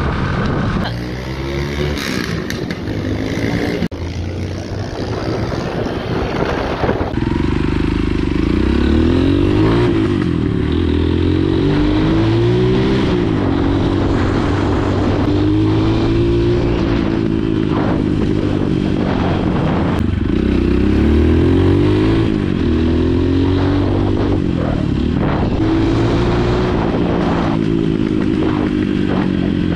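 Dirt bike engine under way, its pitch repeatedly climbing as the rider accelerates and dropping at each gear change. The first several seconds sound different, before the engine pitch pattern sets in.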